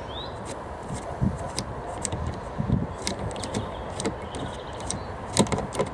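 Scattered small clicks and taps over a steady background hiss, from a hand rivet nut tool being unscrewed from a freshly set rivet nut.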